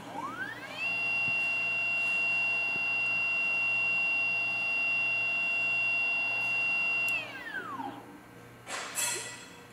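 High-speed spindle of a desktop CNC mill spinning up to a steady high whine within about a second, running for about six seconds, then winding down. A short hiss follows near the end.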